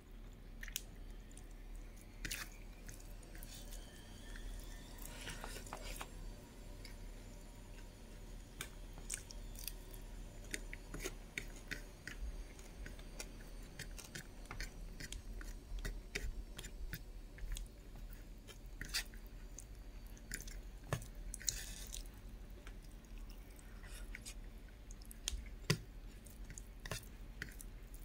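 A person chewing a mouthful of pork curry and rice close to the microphone, with many irregular small mouth clicks over a steady low hum.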